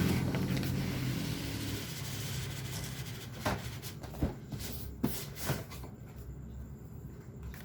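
A motor vehicle's engine hum fading away over the first two seconds, then a few sharp clicks and knocks from handling cardboard packaging.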